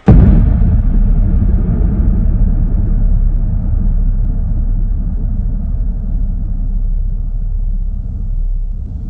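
A sudden deep boom followed by a sustained low rumbling drone that slowly loses its higher edge: a sound-design rumble under a title card.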